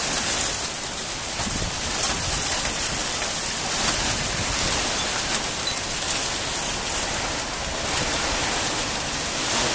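Heavy rain pouring down in a thunderstorm: a steady, dense hiss of drops striking the ground and surfaces.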